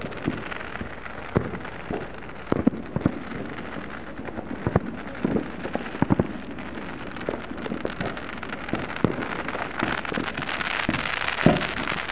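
Fireworks and firecrackers going off around a town: irregular sharp pops and bangs, one or two a second, over a steady hiss, with the loudest bang near the end.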